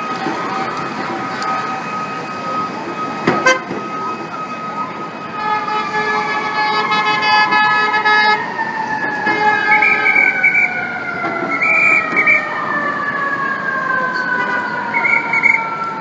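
FDNY fire apparatus sirens in city traffic: steady siren tones at first, a long horn blast about five to eight seconds in, then a siren slowly winding down in pitch with short horn toots over it.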